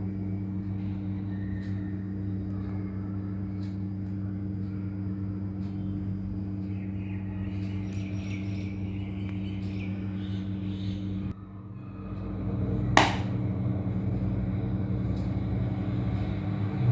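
Steady low electrical hum with one sharp, loud tap about thirteen seconds in and a smaller one near the end. The taps fit a pet rabbit thumping its hind foot on the floor in alarm.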